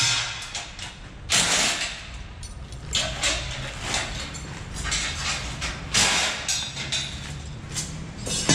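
Unpacking of a motorcycle's steel shipping crate: several short scraping and rustling bursts.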